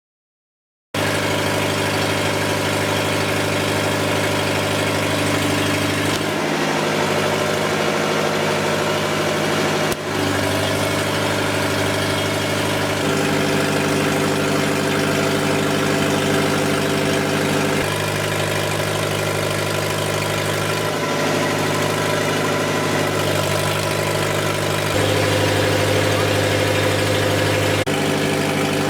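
Lister diesel generator engine running steadily. It cuts in abruptly about a second in, and its tone shifts slightly several times.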